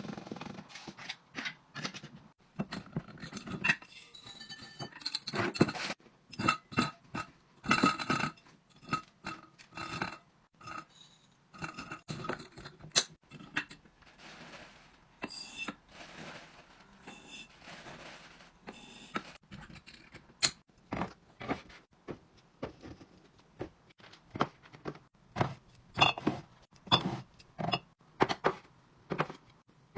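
Food containers, jars and packages being handled, filled and set down: a steady run of clinks, taps, knocks and scrapes, some of the clinks ringing briefly.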